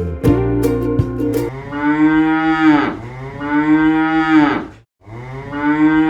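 A cow mooing three times, each moo long and arching in pitch, after a short stretch of plucked-guitar background music.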